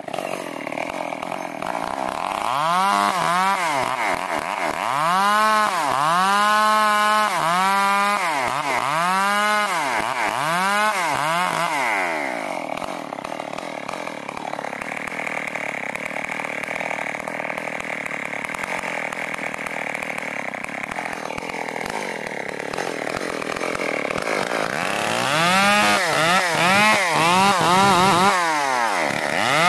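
Chinese-made copy of a STIHL 070 two-stroke chainsaw ripping a plank lengthwise. The engine swells up and down in pitch over and over for the first dozen seconds, runs steadier for about ten seconds, then swells up and down again near the end.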